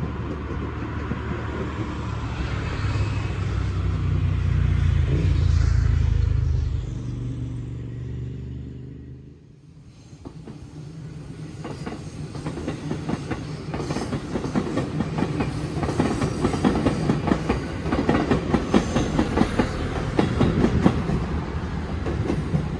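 Electric trains running over station trackwork. First a low rumble swells and fades over about nine seconds. Then a JR 205-series electric multiple unit rolls past close by, its wheels clattering quickly and loudly over rail joints and points.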